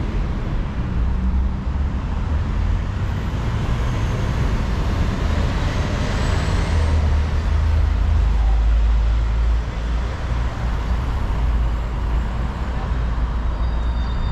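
City road traffic going by, a steady mix of engines and tyre noise, with one louder vehicle passing about six to nine seconds in.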